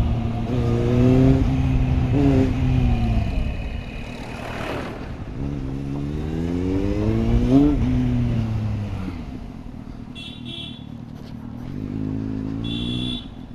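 Superbike engine heard from the rider's seat, its revs rising as it accelerates and falling as the throttle eases off, twice, then running lower and steadier near the end.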